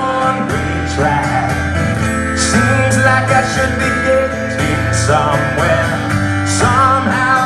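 Live acoustic rock song: a strummed acoustic guitar under a man's singing voice, with some long, wavering sung notes.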